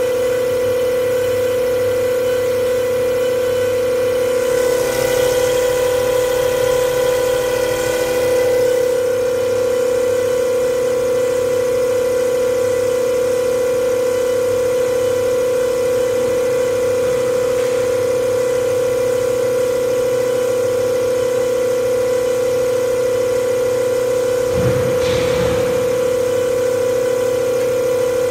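NTS300 common rail injector test bench running a Bosch 0445120149 injector at 100 MPa rail pressure and 800 rpm pump speed: a steady, constant whine. A hiss swells for a few seconds about five seconds in, and a brief low rumble comes near the end.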